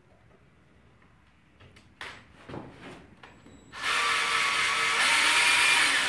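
Power drill driving a screw into wood: a few handling knocks, then the motor runs steadily at full speed for about three seconds from just past the middle.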